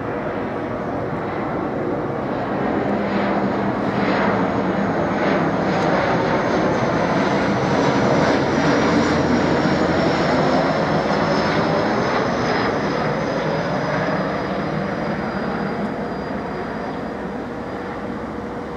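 Bombardier Dash 8 Q400 turboprop airliner passing low overhead on approach with its gear down. Its engines and propellers make a broad rush that builds to a peak about halfway through and then fades. A high whine runs through it and slowly falls in pitch.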